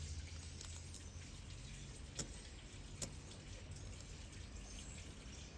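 Faint low hum with two light ticks from small phone parts and tools being handled, about two and three seconds in.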